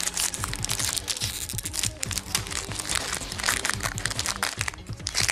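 A foil trading-card booster pack wrapper crinkling and crackling as it is handled and opened, with many quick irregular crackles, over background music.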